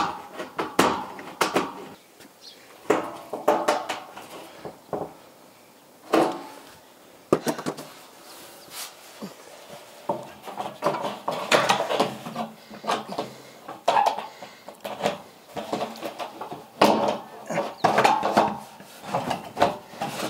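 Bullnose-curved corrugated iron sheet handled and shifted into place on a verandah frame: irregular metallic clanks, knocks and rattles, growing busier in the second half.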